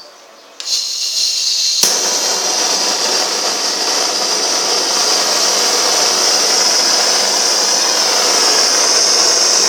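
Gas brazing torch being lit: the gas comes on with a sudden hiss about half a second in, catches with a sharp pop a little over a second later, then burns with a steady loud hiss.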